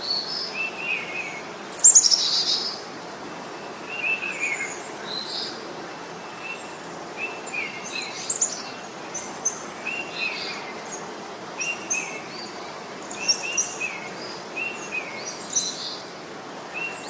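Several birds chirping and calling: short repeated notes and higher chirps, with one louder falling chirp about two seconds in, over a steady outdoor hiss.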